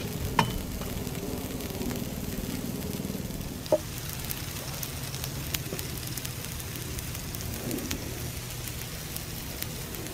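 Steady hiss of live steam from a steam engine plant, with faint crackling and a low hum underneath. Two sharp metallic clicks stand out, one about half a second in and a louder one near four seconds in.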